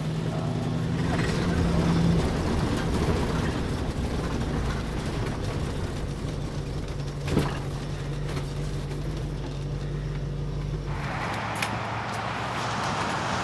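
An old motorhome's engine running steadily while driving, heard from inside the cab, with one short knock about seven seconds in. Near the end it cuts to a steady outdoor hiss.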